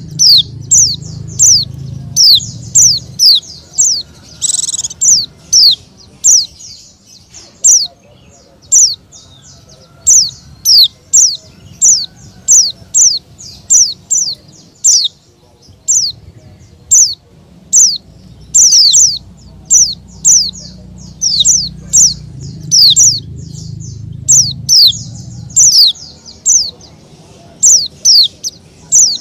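A bird calling over and over with short, high chirps that each slide down in pitch, one or two a second.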